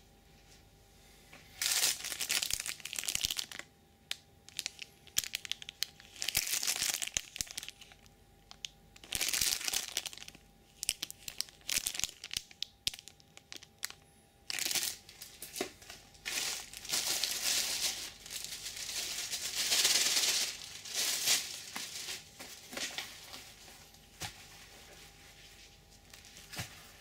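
Clear plastic packaging bags crinkling and rustling in irregular bursts as they are handled and opened to unwrap gloves. The sound dies down a few seconds before the end.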